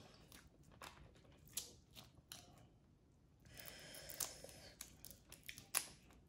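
Boiled crawfish being peeled by hand: faint scattered clicks and crackles of the shell cracking and pulling apart, with a soft rustle starting about three and a half seconds in.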